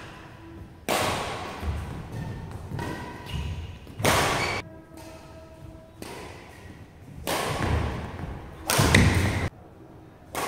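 Badminton rackets striking a shuttlecock in a fast rally: sharp smacks every second or few, the loudest about a second, four seconds and nine seconds in, each ringing on in a large sports hall, with softer hits and thuds of footwork between.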